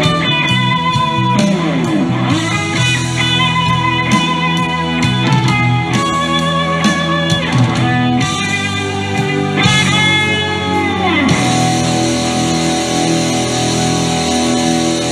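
Electric guitar playing a lead solo line: long sustained notes bent up and down with vibrato, settling about eleven seconds in into steadier held notes that ring on.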